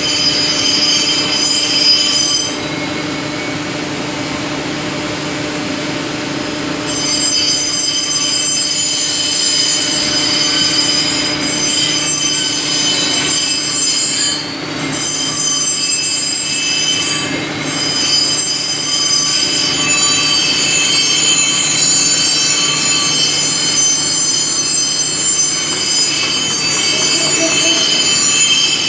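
CNC machines running in a machine shop, a loud steady mechanical whine made of several high-pitched tones over a low hum. About three seconds in the highest tones drop out for roughly four seconds, then return.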